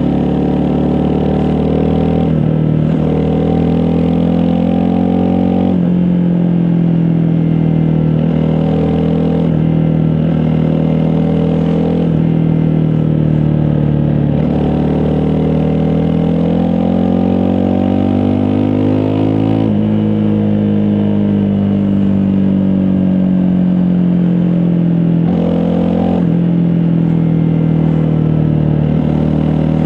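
Honda CRF250 Rally's single-cylinder four-stroke engine under way. Its pitch climbs slowly and then drops abruptly several times at gear changes. About twenty seconds in the pitch jumps up at once and then falls slowly for several seconds as the rider eases off.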